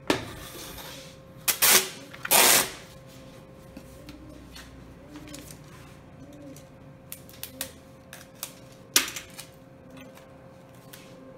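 Clear adhesive tape being pulled off a roll in three short, loud rasping rips near the start. Scattered light clicks and a sharp snap follow about nine seconds in as tape is torn off and laid down.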